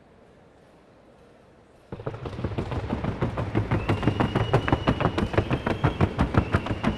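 Hooves of a Colombian criollo horse in the trocha gait striking a wooden sounding board (tabla): a rapid, even drumming of hoofbeats that starts suddenly about two seconds in.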